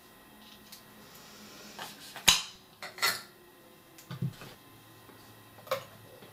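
Makeup products and tools being handled on a tabletop: several short clicks and clinks, the loudest a little over two seconds in.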